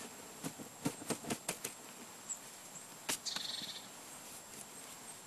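Aluminium foil crinkling as a foil roll of charred cloth is handled and opened: a quick run of sharp crackles, one louder snap about three seconds in, then a brief fast rattle.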